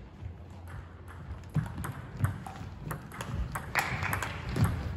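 Table tennis rally: the celluloid/plastic ball clicking off rubber paddles and bouncing on the table in a quick back-and-forth, about two or three sharp clicks a second.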